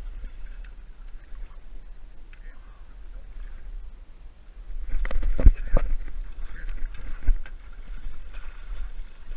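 A muskie hitting the lure beside the boat: sudden heavy splashing and thrashing at the surface starts about five seconds in, with several sharp thumps among it. A steady low rumble of wind on the microphone runs under it.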